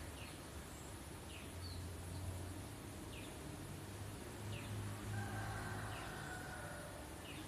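Faint ambience: a short, high, falling chirp repeats about every second and a half over a low steady hum.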